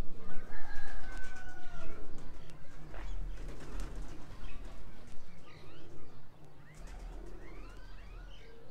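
Pigeons cooing and flapping their wings, mixed with other birds' chirping calls.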